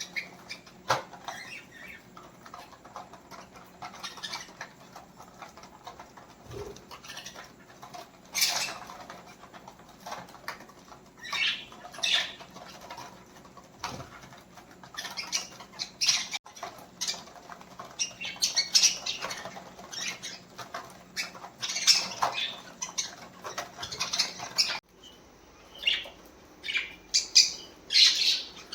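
Pet budgerigars chirping and squawking in short, irregular bursts, the calls coming thicker and louder in the second half.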